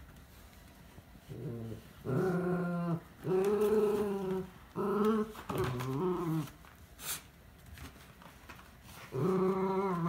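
Miniature schnauzer growling in play while tugging at an empty cardboard box. It gives about five drawn-out, pitched growls in a cluster, a pause, then one more near the end.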